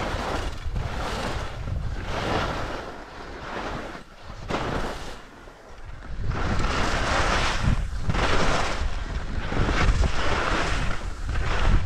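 Wind rushing over a GoPro's microphone and skis hissing over snow while skiing downhill, swelling and fading about once a second. It dips quieter from about four to six seconds in, then runs louder.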